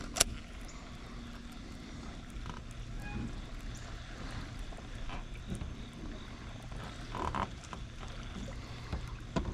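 Baitcasting rod and reel being cast and fished: a sharp click just after the start as the cast is made, then quieter scattered reel and line sounds over a steady low hum.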